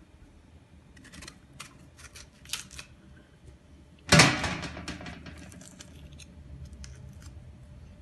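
Small paring knife cutting away the rind of a whole pomegranate: a run of short, crisp cuts and snaps, then one much louder knock about four seconds in that fades over about a second.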